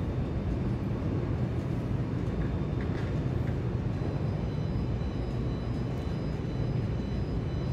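Steady background noise of a large indoor mall atrium: an even, low hum with no distinct events.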